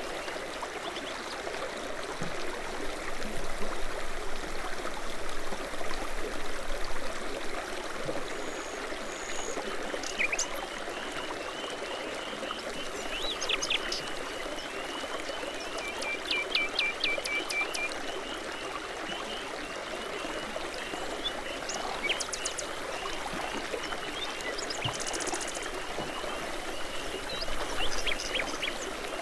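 A babbling brook's water running steadily, with songbirds singing and chirping at intervals: short whistles, quick chirp series and a fast high trill.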